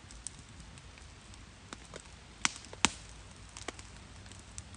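Sharp clicks and snaps from a campfire grill with meat cooking over a wood fire: scattered single clicks, and two loud snaps about half a second apart in the middle.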